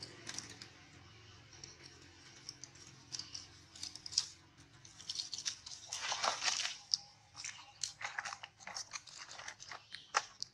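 Dry leaf litter crackling and crunching as macaques shift and move over it close to the microphone, a dense run of crackles about six seconds in and scattered sharp crackles after.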